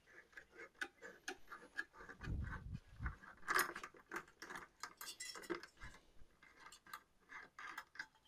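Faint, irregular small metal clicks and ticks, several a second, with a couple of dull knocks about two to three seconds in, from a tower CPU air cooler's metal mounting hardware being worked by hand to take the cooler off the motherboard.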